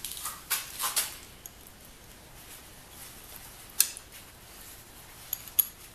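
Hand tools working in the bandsaw motor's metal terminal box with leather-gloved hands: a few scrapes and rustles in the first second, a sharp metallic clink a little before four seconds in, and two small ringing taps near the end.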